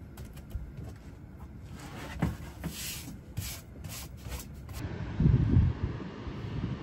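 Brush sweeping sand off a van floor in a run of short swishing strokes. About five seconds in, the sound changes abruptly to a low rumble with one loud surge.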